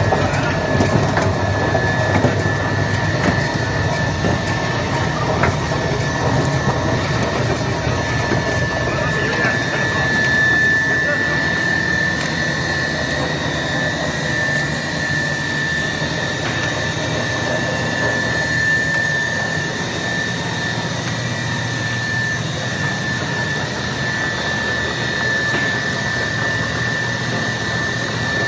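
Poultry deboning machine (bone-meat separator) running: a steady mechanical drone with a high whine on top.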